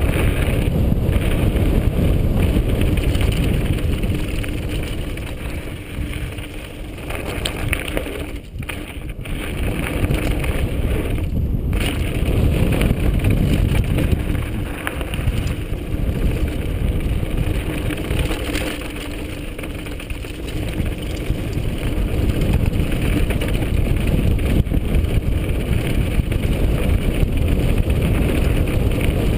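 Mountain bike speeding down a loose gravel and rock trail: wind rushing over the bike-mounted camera's microphone, with the rumble and rattle of the tyres and frame over stones.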